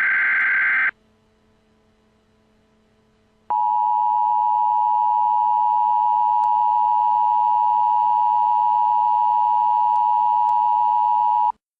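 A short, harsh electronic burst, then after a gap of about three seconds a loud, steady Emergency Alert System attention tone. It holds for about eight seconds and cuts off abruptly.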